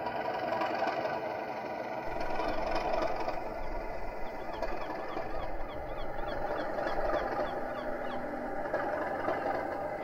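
Class 37 diesel locomotive engine running steadily, a deeper rumble joining about two seconds in. Gulls call repeatedly over it from a few seconds in.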